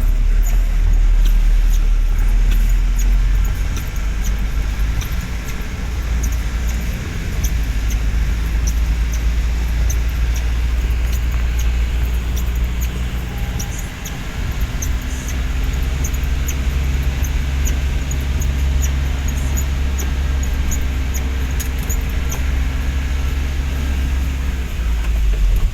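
Vehicle moving through heavy rain: a steady low road rumble under a hiss and a scattered patter of sharp raindrop ticks. A low engine hum rises in about halfway through.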